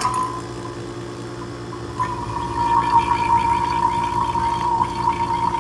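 Refrigeration vacuum pump just switched on and running steadily, with a constant whine, as it pulls a vacuum on an old refrigerator's sealed system through a gauge manifold. About two seconds in, the sound grows louder.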